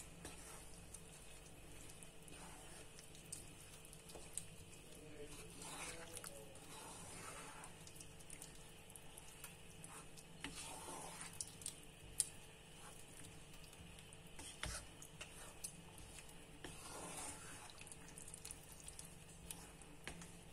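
Faint wet squelching of a wooden spoon stirring a thick, saucy stew of sausage, bell peppers and tomato in a pot, coming in soft swells every few seconds, with a few light clicks.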